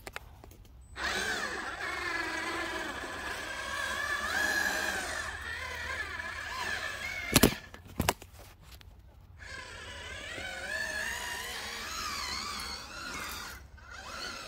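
Small electric motors of a radio-controlled model machine whining, the pitch wavering up and down. The sound breaks off briefly twice. Two sharp clicks come about halfway through.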